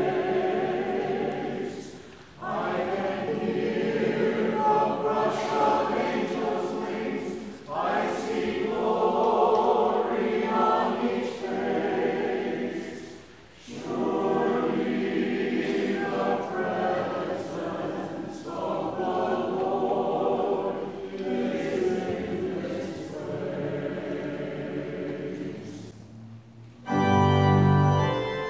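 Church choir singing in phrases with short pauses between them. Near the end an organ comes in with a loud held chord.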